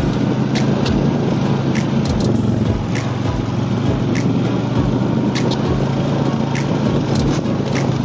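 An engine running steadily with a low hum, with sharp clicks or rattles scattered through it.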